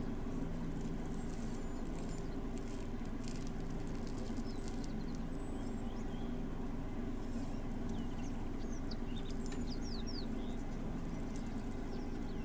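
Steady low hum of an idling engine, with a few light crackles early on and faint bird chirps near the end.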